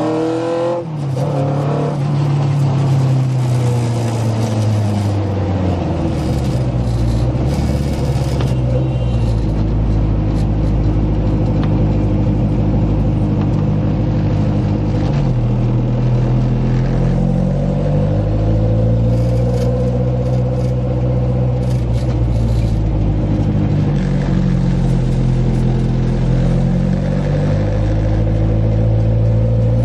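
Engine of a Fiat 126 fitted with a 1,300 cc motor, heard from inside the cabin while driving, its pitch rising and falling over several seconds at a time as the driver accelerates and eases off. There is a brief drop in the note about a second in.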